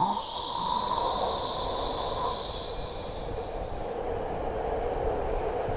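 Hearty snoring in sleep: one long, continuous snore.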